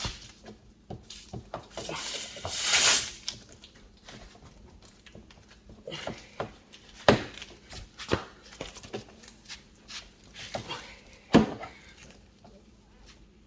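Tyre plug insertion tool being worked into a tyre puncture: a rasping scrape followed by scattered clicks and taps, with two sharp knocks about seven and eleven seconds in.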